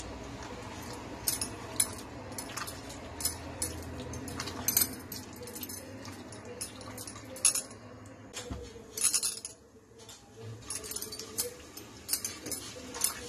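Frying pan being shaken by its handle on a gas stove's burner grate, clinking and scraping against the metal. There is a run of sharp, irregular metallic clinks.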